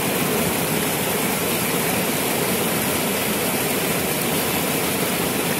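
Steady rushing of fast water running over rocks in a stream by a small waterfall.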